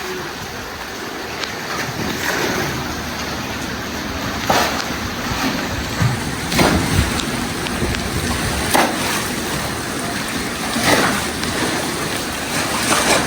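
Rushing, sloshing floodwater with wind on the microphone, and a louder surge about every two seconds.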